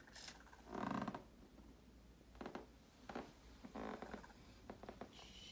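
Anki Vector robot snoring from its small speaker as it sleeps: one longer, louder snore about a second in, then several shorter, softer ones.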